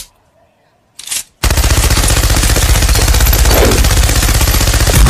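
Machine gun sound effect: rapid, continuous automatic fire that starts suddenly about one and a half seconds in and keeps going, preceded by a short noise about a second in.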